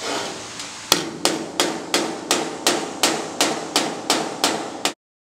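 Body hammer striking sheet metal backed by a steel dolly, a steady run of about a dozen ringing blows, roughly three a second, rounding the radius of a replaced patch on a car cab's edge lip. The blows stop abruptly near the end.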